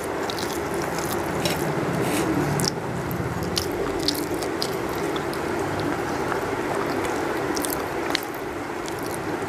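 Fingers mixing rice with curry on a steel plate and a person chewing, making many small sharp wet clicks over a steady low hum.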